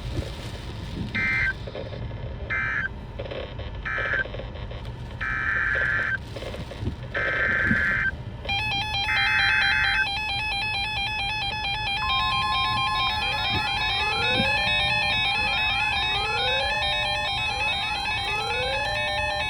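Weather-radio emergency alert tones: six short, harsh buzzing data bursts over the first ten seconds, then a layered electronic tone pattern with a brief steady tone and repeated rising sweeps. A low wind rumble on the microphone runs underneath.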